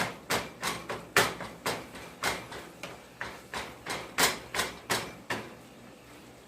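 Food being chopped with a kitchen utensil on a hard surface: a quick series of sharp chopping knocks, about three a second, that stops a little after five seconds in.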